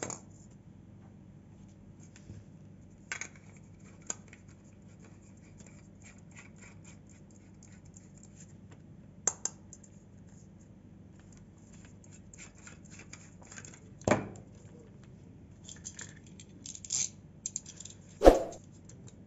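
Scattered clicks, knocks and scrapes of hands handling a plastic LED bulb and lamp socket, over a faint low steady hum. Near the end comes a louder scrape as a utility knife blade is worked against the bulb's plastic dome.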